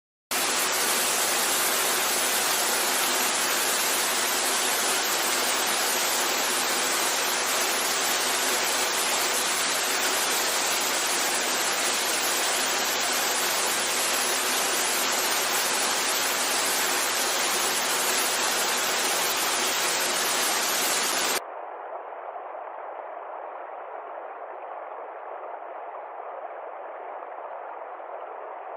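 Waterfall: steady rushing water, loud and even. About 21 seconds in it cuts suddenly to a quieter, thinner rush of water.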